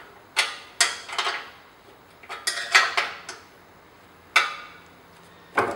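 A run of sharp metallic clinks and clatters, about eight of them with several close together around the middle, as a castor wheel and its nuts and bolts are handled against a welded steel tubular cart frame.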